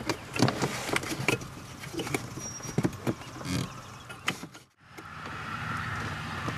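Irregular clicks and light knocks of a mini socket wrench and hands working on the plastic heater box, turning out a screw on the blend-door actuator motor. About three-quarters through the sound cuts out briefly, and steady background noise follows.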